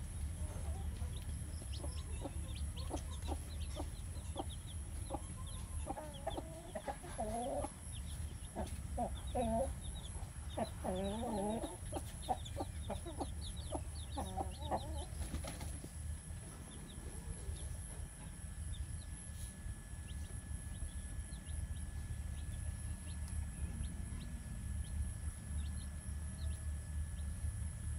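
Chickens clucking in quick runs of short calls, with chicks peeping thin and high. The clucking stops about halfway through, leaving a steady low rumble.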